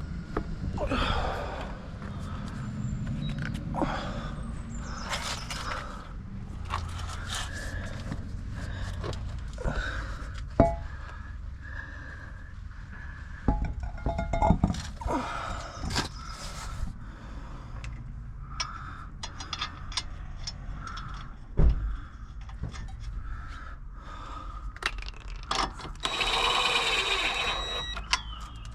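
Hand tools and metal car parts clanking, scraping and clicking during work on the car, with two sharp knocks, one about ten seconds in and one about twenty-two seconds in, and a rasping burst of about two seconds near the end.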